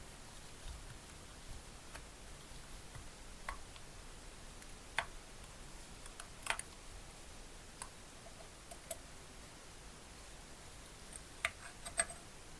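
Scattered light clicks and taps, about seven of them, some with a brief metallic ring, as small parts of a copper box are handled and worked on.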